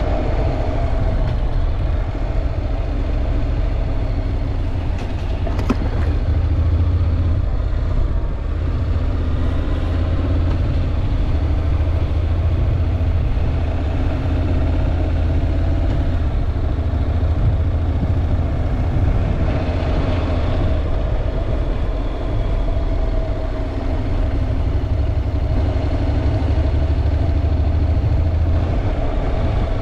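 Honda NC750X motorcycle's parallel-twin engine running steadily at an even pitch under a deep, steady rumble. There is one brief click about six seconds in.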